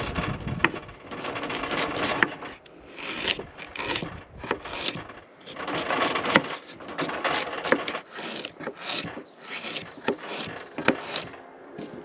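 Chef's knife cutting raw sweet potato and broccoli on a wooden cutting board: a run of irregular slicing strokes, several ending in a sharp knock of the blade on the board.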